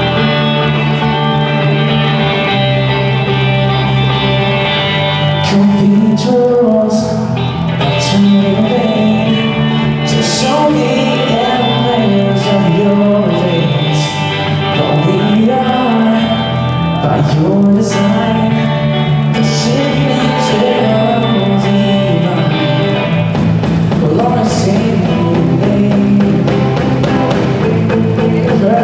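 Live rock band with electric guitars and bass playing a worship song. A young man's lead vocal comes in about five seconds in and carries on over the band.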